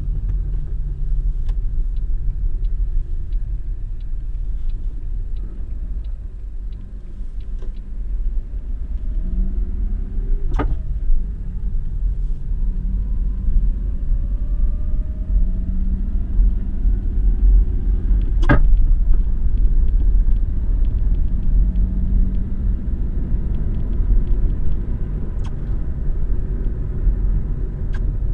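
Lada Vesta on the move: steady low rumble of the car, with the engine note rising several times, and three sharp knocks, about 10, 18 and 25 seconds in. These are the clunk from under the hood that comes over bumps and in turns, traced to a broken right engine mount.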